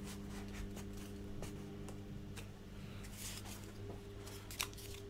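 Small white foam positioning wedges being handled and rubbed between the fingers: light scratchy rustling and faint clicks, with a short scratchy rustle about three seconds in and a click near the end. A steady low hum runs underneath.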